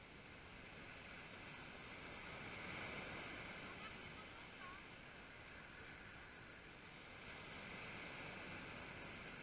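Small waves breaking and washing up a pebble beach. The surf is quiet, with swells of wash about three seconds in and again near the end.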